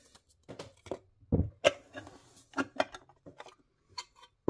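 Clear plastic packaging of a diecast model being handled: a run of clicks, taps and crinkles, with a louder knock about one and a half seconds in.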